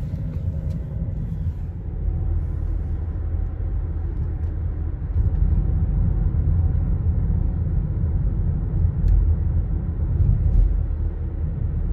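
Steady low rumble of road and engine noise inside a moving car's cabin, a little louder from about five seconds in.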